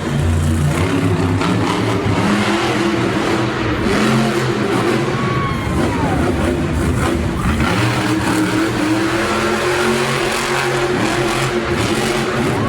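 Monster truck engines running loud and revving, their pitch rising and falling repeatedly.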